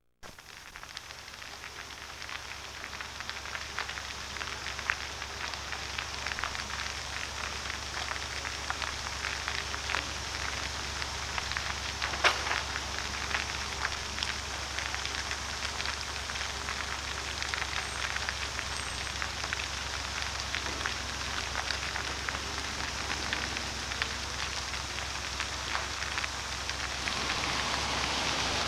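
Large building fire crackling and popping: a dense, irregular crackle with a sharper pop about twelve seconds in, a little louder near the end, over a steady low hum.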